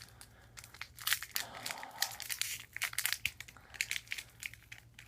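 Trading card pack wrapper and cards being handled: irregular crinkling and crackling as the foil pack is worked open and the cards are handled.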